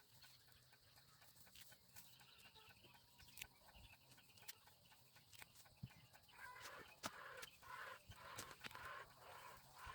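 Near silence with faint scattered clicks. From about six seconds in, chickens cluck faintly.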